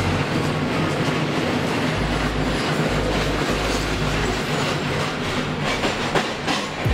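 Passenger train running along the track: a steady rumble of wheels on the rails with a light clickety-clack.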